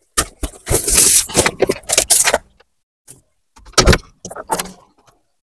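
Cardboard packaging scraping and rustling for a couple of seconds as a framed solar panel is slid out of its box. Then comes one sharp knock from the handled panel, followed by a few light clicks.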